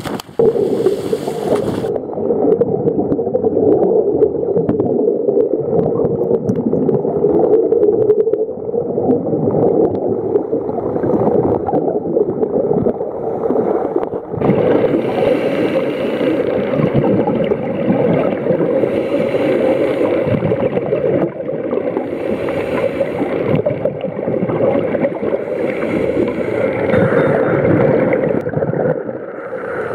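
A scuba diver splashes into the sea, then the sound goes muffled and underwater: the rush and gurgle of scuba divers' exhaled bubbles from their regulators. From about halfway, bubble bursts come every two to three seconds.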